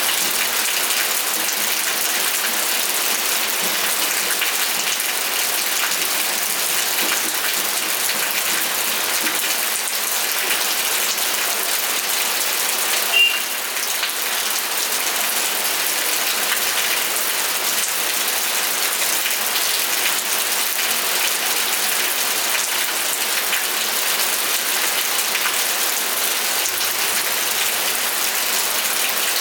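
Steady rainfall, an even hiss of many drops hitting surfaces. About thirteen seconds in there is one brief, sharp, high-pitched blip.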